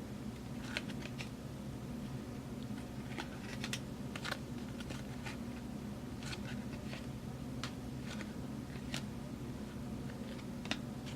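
Football trading cards being handled and flipped through one by one, giving light scattered clicks and slides, one or two a second, over a steady low hum.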